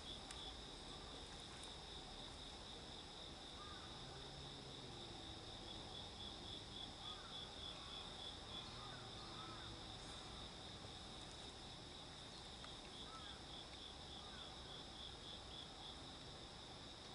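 A faint, steady chorus of insects chirping, a continuous high pulsing trill.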